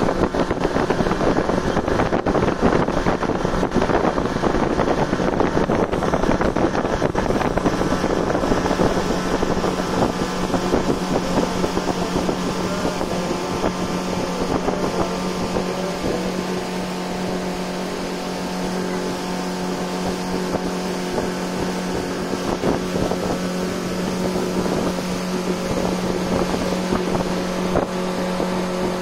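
A motorboat's engine running at a steady speed with a constant hum, under the rush of wind and water. The wind buffets the microphone hardest in the first several seconds, then eases.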